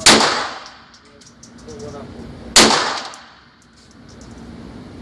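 Pistol fired twice, about two and a half seconds apart, each shot sharp and loud with a short ringing tail that dies away over half a second.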